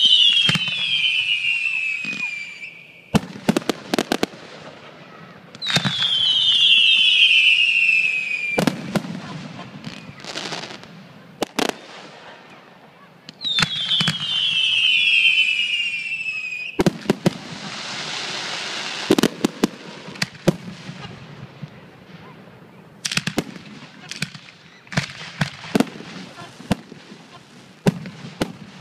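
Fireworks display: three long whistling fireworks, each whistle falling in pitch, with sharp bangs of shells bursting between them. A hissing, crackling stretch comes about two-thirds of the way through, and a quick run of bangs follows near the end.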